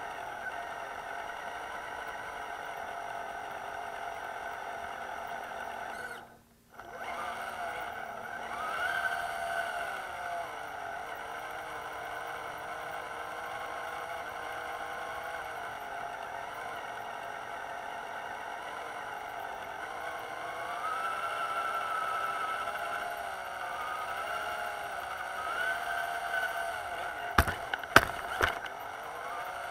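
RC crawler truck's electric motor and gear drivetrain whining, heard from a camera mounted on the truck, the pitch rising and falling with the throttle. It cuts out briefly about six seconds in, and a few sharp knocks come near the end.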